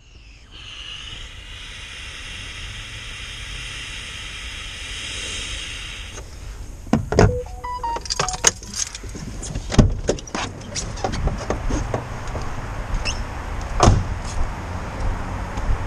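A steady hiss for the first six seconds. Then a van's driver door is unlatched and pushed open with a run of clicks and knocks, and it is slammed shut with a thump about 14 seconds in.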